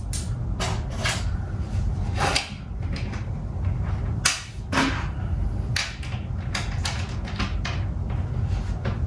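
Irregular small clicks and knocks of a metal bolt, washers and wing nut being fitted and hand-tightened through the hinged wooden back brace of a wall clock, with one sharper click about halfway through, over a steady low rumble.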